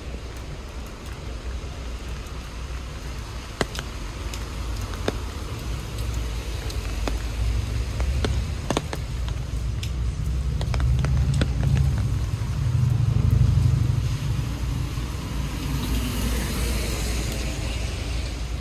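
Road traffic on a wet city street: a low vehicle rumble that grows louder and peaks about two thirds of the way through, with a hiss near the end and a few sharp clicks along the way.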